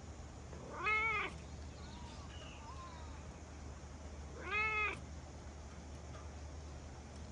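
A cat meowing twice, about three and a half seconds apart. Each meow is short, rising and then falling in pitch.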